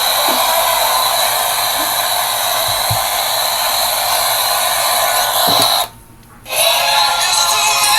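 Loud, steady hissing noise that cuts out suddenly for about half a second about six seconds in, then resumes.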